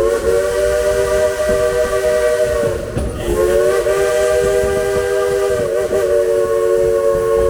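Frisco Silver Dollar Line steam locomotive's whistle sounding several tones at once in two long blasts, with a short break about three seconds in.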